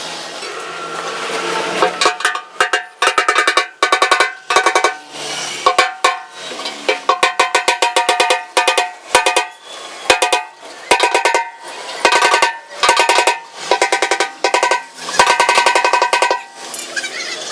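Rapid runs of hammer blows on the sheet-steel fuel tank of a Bajaj Pulsar 150, beating out accident dents; each run of quick strikes rings like a bell at a few steady pitches, with short pauses between runs.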